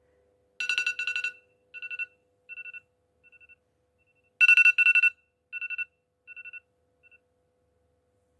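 Electronic telephone-style ringtone, trilled on two pitches. It sounds twice, each time as a double ring followed by fading echo-like repeats.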